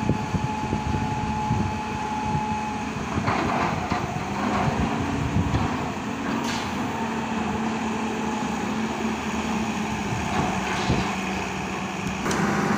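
A Hitachi crawler piling rig's diesel engine and hydraulics running steadily under load as the drilling bucket is hoisted out of the bore on the kelly bar. There are a few sharp metallic knocks, and the running sound roughens for a few seconds partway through.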